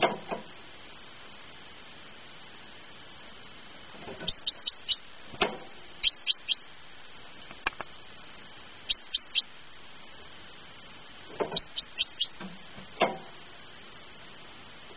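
Great tit singing: four quick runs of three to five short, high, sharply falling notes, a couple of seconds apart. A few short low thumps fall between the runs.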